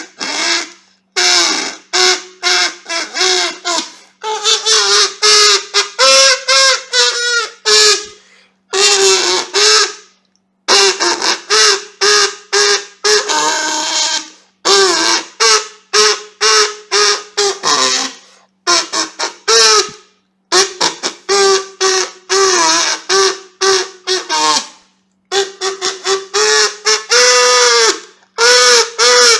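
Kazoo played in short buzzy phrases of quick notes, mostly at one pitch with occasional upward slides, broken by brief pauses.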